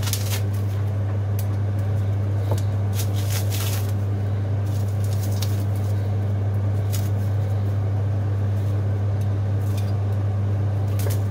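A steady low hum throughout, with scattered crinkling and rustling of packaging as a newly delivered item is unwrapped and handled.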